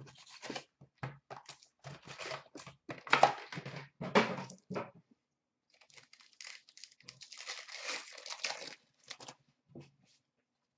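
Paper and wrapped packs of Upper Deck SP Authentic hockey cards rustling, crinkling and tearing as the box is unpacked and the packs handled, in irregular bursts with the loudest tears about three and four seconds in.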